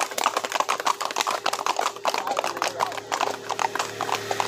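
Hooves of several horses clopping quickly on an asphalt road as they move at a brisk gait, making a busy, overlapping clatter. A steady engine hum runs faintly underneath.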